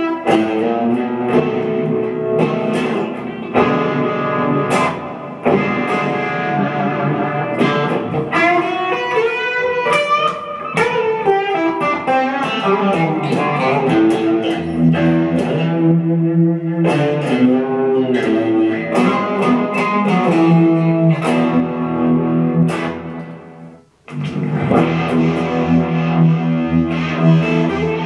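Fender Stratocaster electric guitar played through a Fender Champion 100 amplifier: a mix of picked single-note lines and ringing chords. The playing fades almost to silence about four-fifths of the way through, then starts again.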